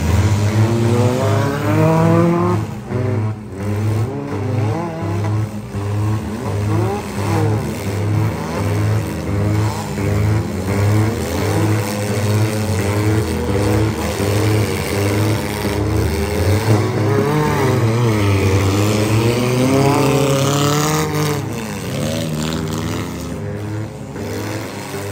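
Several demolition derby cars' engines revving up and down together as the cars drive and ram one another, with a few sharp crunching impacts of car bodies hitting.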